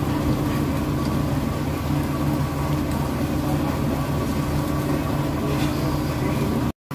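Steady low mechanical hum of restaurant ventilation, running without change. The sound cuts out for a moment near the end.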